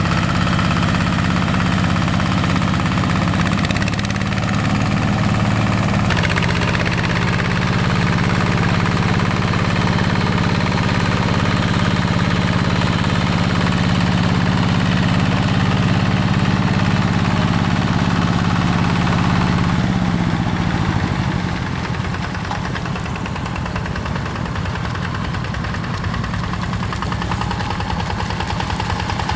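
Single-cylinder Yanmar diesel engine of a two-wheel hand tractor running steadily under a constant throttle, its note falling and getting quieter about twenty seconds in as it slows.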